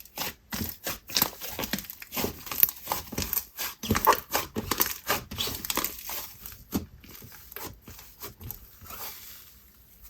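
Inflated slime being squished and mixed by hand, giving dense, irregular sizzly crackles and pops that thin out near the end.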